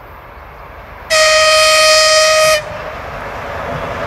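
TEP70 diesel locomotive sounding its horn in one steady blast of about a second and a half, starting a little after a second in. After the blast, the rumble of the oncoming locomotive and its passenger train grows steadily louder.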